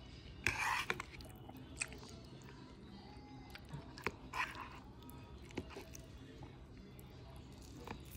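Metal fork working through soft rice paper rolls in a bowl: a few short scrapes and light clicks of the tines against the bowl, with soft wet food sounds.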